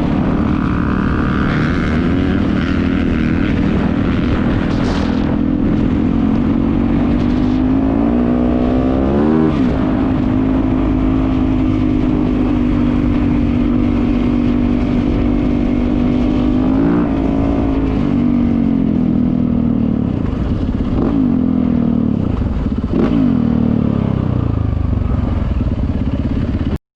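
Four-stroke single-cylinder Yamaha dirt bike engine running under steady throttle on a trail ride, its note dipping and climbing again with throttle and gear changes about a third of the way in, around two-thirds, and twice more near the end. It cuts off suddenly at the very end.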